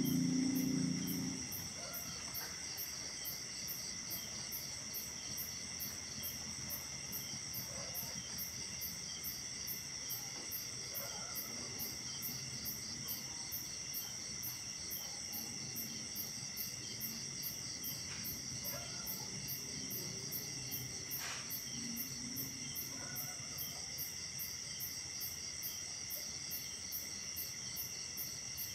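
Night insects, crickets among them, chirring in a steady chorus of high, continuous tones with a fast, even pulsing on top. A louder, low sound fills the first second and a half, and a few faint short low calls come through later.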